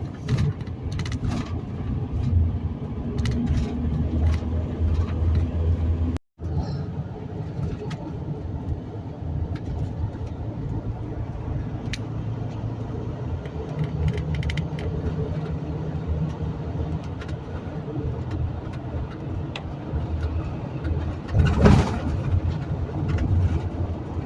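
Steady road and engine noise heard from inside a moving vehicle at highway speed, with a short dropout about six seconds in and a brief louder burst near the end.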